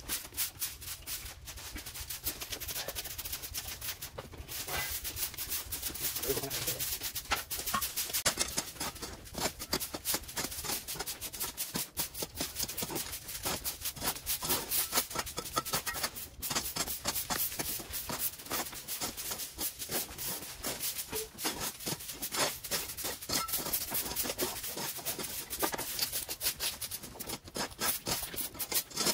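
Rapid, continuous scrubbing strokes on a surface, several a second.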